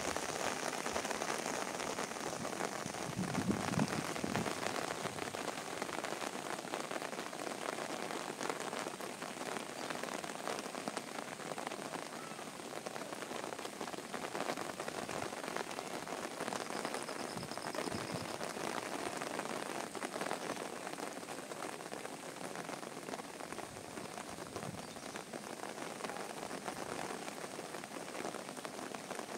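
Heavy rain pouring steadily onto flooded ground and puddles, an even, unbroken wash of sound, with a brief low rumble about four seconds in.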